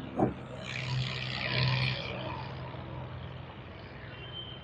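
The bonnet of a 1992 Suzuki Mehran being opened: a sharp click from the release catch, then a rustling noise for about a second as it is raised. A steady engine hum runs underneath.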